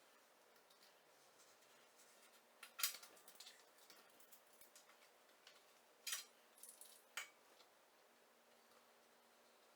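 Near silence broken by a few sharp clicks of small objects being handled. The loudest is about three seconds in, and two more come around six and seven seconds in.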